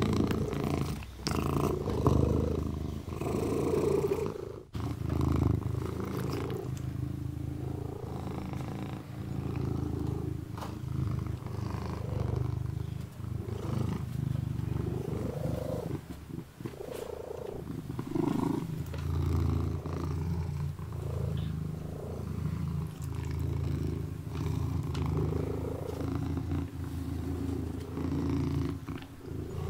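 Orange longhaired kitten purring steadily in slow swells, with small licking clicks as it washes its paw.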